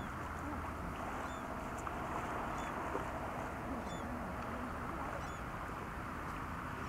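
Steady outdoor ambience of wind and lake water at the shoreline, with faint short high bird chirps repeating about every second and a half.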